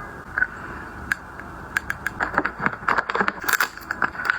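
Handling of cosmetic packaging: a run of sharp clicks, taps and crinkles, a few at first, then coming thick and fast from about two seconds in.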